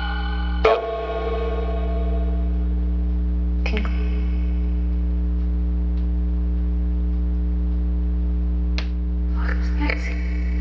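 Necrophonic spirit box app playing its sound bank with echo through a phone speaker: held, echoing pitched fragments over a steady low hum. Each fragment switches suddenly to the next, about a second in, near four seconds, and again near the end.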